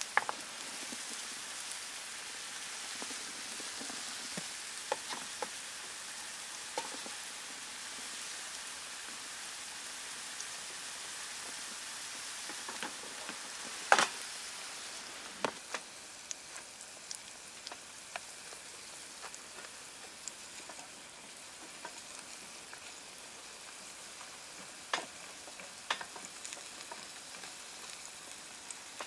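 Falafel patties frying in oil in a pan, a steady sizzling hiss. Scattered clicks and knocks of utensils and cookware come through it, with one sharp clack about halfway through.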